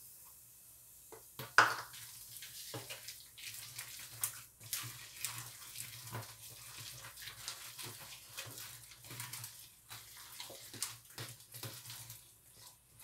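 A spoon stirring a wet zucchini fritter batter in a mixing bowl: irregular wet squelching and scraping against the bowl, with one sharp knock about a second and a half in.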